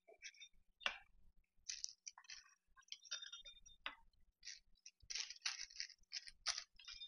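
Rolling pizza-cutter wheel pressing through crisp baked tostada chips on parchment paper: a run of faint, irregular crunches and crackles.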